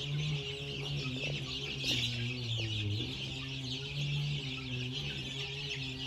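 A flock of three-week-old Peruvidai country chicks peeping and cheeping all at once while they peck at termites, a dense high-pitched chatter that never lets up.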